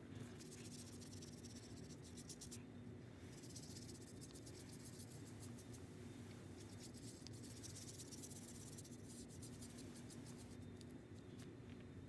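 Faint, rapid scratching of a paintbrush's bristles on paper as black tempera paint is brushed on to fill in a shape, over a steady low hum.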